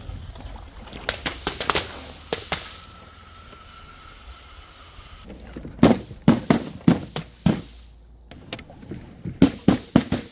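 A run of hard knocks and clatters, one thing striking after another, in two quick bursts in the second half; before them, a few light clicks and a faint steady whine over a low rumble.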